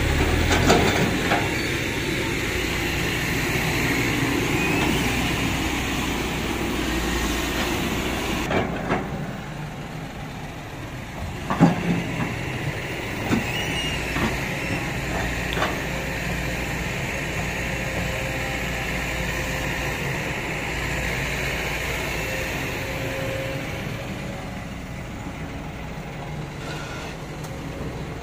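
Kobelco hydraulic excavator's diesel engine running under load as the boom and bucket work, with a steady high whine over the low engine rumble. A few sharp knocks near the middle.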